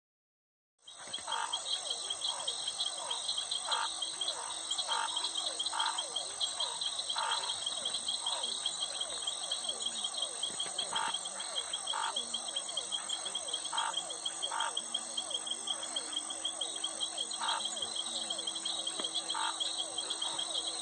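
Chorus of frogs and crickets: steady high insect trilling under short frog calls that repeat at irregular intervals, a few seconds apart. The sound starts abruptly about a second in.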